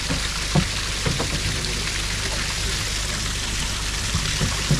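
Steady rush of splashing water as brown trout are tipped and netted from a stocking truck's tank into the fishery, over a low steady hum, with a few short knocks.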